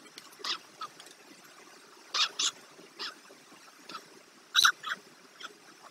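White stork chicks in the nest giving short, high calls, several of them in quick pairs.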